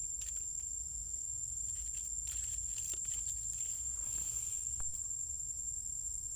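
Light steps and rustles on dry leaf litter, with scattered small clicks and a soft rustle about four seconds in, over a steady high thin whine and a low rumble.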